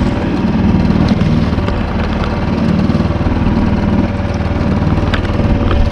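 Boat's outboard motor running steadily at trolling speed, a low even engine hum.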